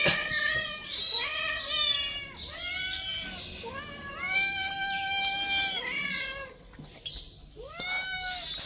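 Several young cats meowing over one another as they wait to be fed, a string of short rising-and-falling meows with one longer, held meow about four to six seconds in.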